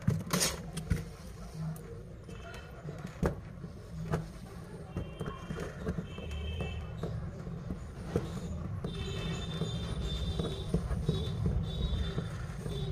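Low steady rumble of road traffic, growing louder about two-thirds through, with several short high-pitched tones over it. A few sharp clicks near the start as the phone is handled on the repair mat.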